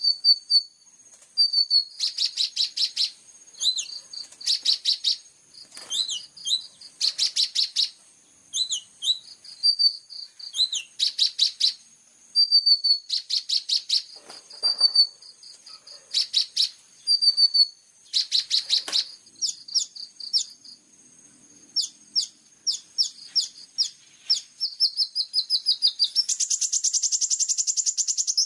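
Songbird song from a bird-song master recording: rapid high-pitched chattering trills in bursts about every second or two, with short sweeping chirps between them and a long, dense buzzy trill near the end.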